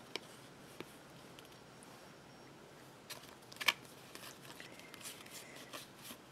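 Smith-Waite tarot cards handled in a fanned hand: a few faint clicks and soft rustles as the cards are shifted, with one sharper snap about three and a half seconds in.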